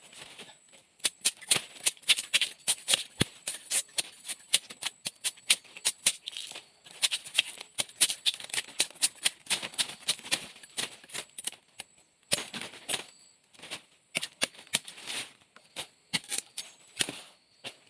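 Dry leaves and twigs rustling and crackling in quick, irregular clusters of sharp crisp crackles, with brief pauses about two-thirds of the way through and near the end.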